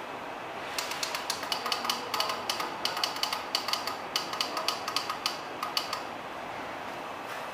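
Rapid, irregular clicking, about five clicks a second, over a steady hiss. The clicking starts about a second in and stops near six seconds.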